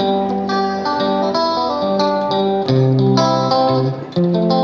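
Background music led by plucked guitar notes, with a steady rhythm of note attacks.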